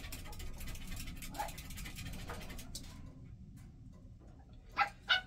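A small dog whining: two short, high whines close together near the end, with fainter whimpers before, over faint scattered ticking.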